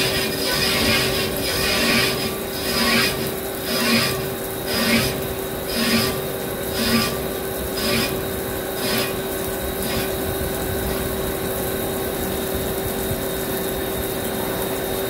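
A vertical lathe turning a spinning cast-iron turbo compressor housing, with coolant spraying: a steady scraping cutting sound over a constant hum. Louder pulses come about once a second through the first nine seconds or so, then the sound evens out.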